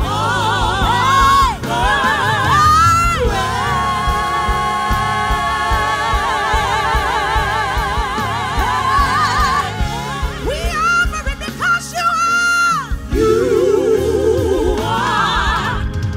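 Live gospel praise-team singing over instrumental backing: a lead voice holds long notes with heavy vibrato, and a lower voice takes the line near the end.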